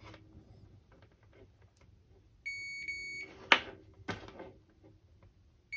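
Digital multimeter's continuity beeper sounding a steady high beep for about a second, with a brief break, as the probes bridge the cable's ground connection, a sign the ground is continuous. Sharp probe clicks follow, the loudest about half a second after the beep.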